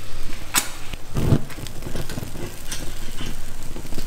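Rum sizzling and crackling in a hot frying pan of sugar-caramelised bananas as it is flambéed. There is a sharp click about half a second in and a dull low burst just after a second.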